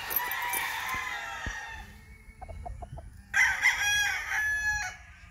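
A young gamefowl cockerel, about five and a half months old, crowing twice: a rougher crow for the first two seconds, then a louder, steadier crow from about three seconds in to near the end.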